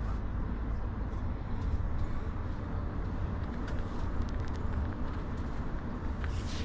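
Steady low rumble of a coach's engine and tyres at motorway speed, heard inside the passenger cabin.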